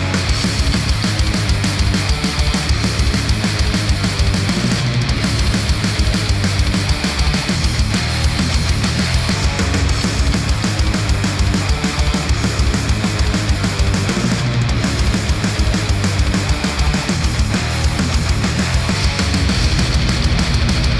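A hard-driving heavy rock track with a heavy bass and rapid, steady drum hits, playing without a break. It is heard as played back through Sennheiser headphones and picked up by microphones at the earcups.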